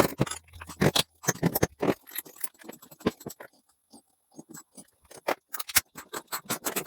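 Tools and parts being handled: irregular clicks, knocks and light scrapes, sparser through the middle.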